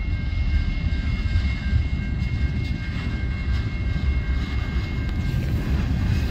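Freight train of tank cars rolling past a grade crossing with a steady low rumble. The crossing bell rings in quick, even strokes and stops shortly before the end.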